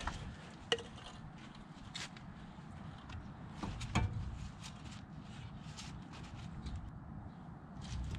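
Light clicks and taps of hands handling brake parts and supplies at a car's front wheel hub, over a steady low rumble. The sharpest clicks come about a second in and again near the middle.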